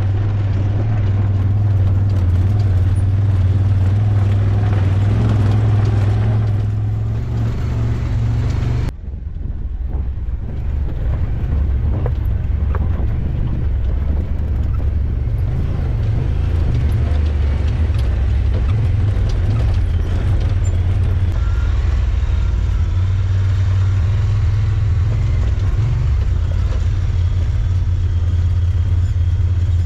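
A vehicle driving at a steady pace: a low, steady engine drone with road noise. The sound breaks off abruptly about nine seconds in and then carries on much the same.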